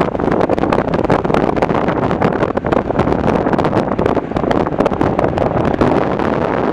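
Jet roar from an Airbus A380-800's four Engine Alliance GP7200 engines at takeoff power during the takeoff roll: a loud, steady, crackling rumble, with wind buffeting the microphone.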